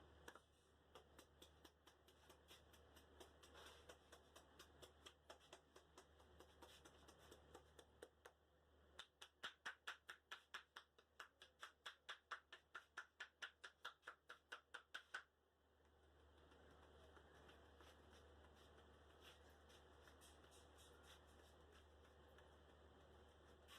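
Barber's hands working a head massage: soft, irregular light taps and rubs at first, then, from about nine seconds in, roughly six seconds of quick rhythmic hand slaps or claps on the head at about four a second, which stop abruptly.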